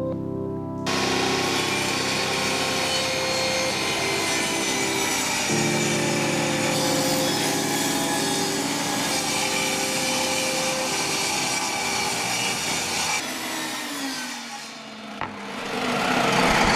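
Power saw cutting wood, a steady rasping noise for about twelve seconds that stops near the end as the tool winds down, with background music underneath.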